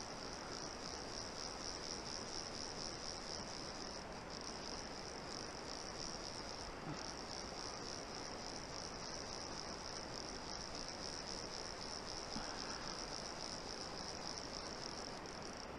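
Orvis fly reel's click drag ratcheting in a continuous high buzz as a hooked fish takes line against the bent rod, breaking off briefly twice.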